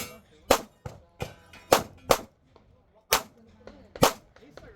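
Pistol gunfire in a fast, irregular string: about seven sharp, loud shots, roughly half a second to a second apart, with a few fainter shots between them.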